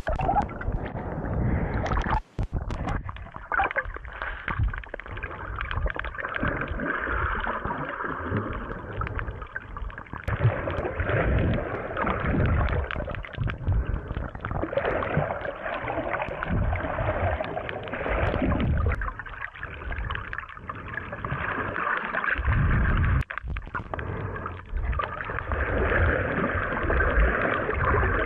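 Muffled underwater sound of water rushing and gurgling around a camera held underwater by a swimmer, with uneven low rumbles. It cuts out for an instant about two seconds in and again near the end.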